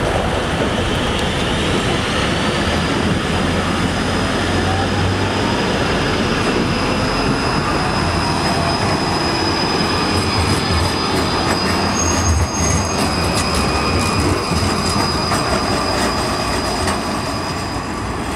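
Trams running over a junction of curved track. A tram's wheels squeal on the curve as a single high steady tone that rises in pitch about two seconds in and holds until near the end, over the rumble of the rolling tram.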